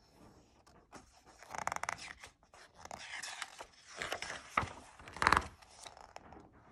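A picture book's paper page being turned by hand: rustling and sliding paper, with a sharp slap of the page about five seconds in as it is flipped over and laid flat.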